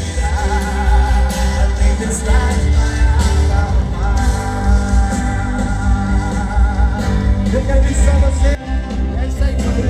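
Live worship music with heavy bass, sustained chords and a wavering sung voice.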